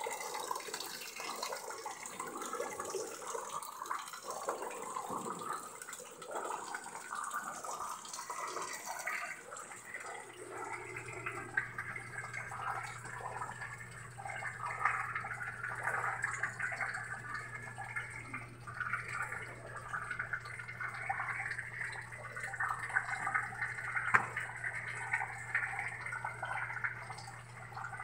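Heavy rain falling on a concrete yard, with water splashing and dripping; at first a trickle of rainwater pours into a bucket of water. A low steady hum joins about ten seconds in.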